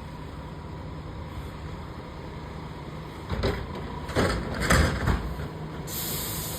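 Garbage truck engine running steadily, then several loud metal clanks and bangs about three to five seconds in as a dumpster is picked up, and a short hiss near the end.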